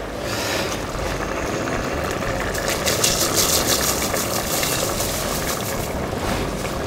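Drained rice poured from a metal strainer into a pot of hot meat broth: the grains patter and rattle into the liquid, thickest a few seconds in, over a steady rushing hiss.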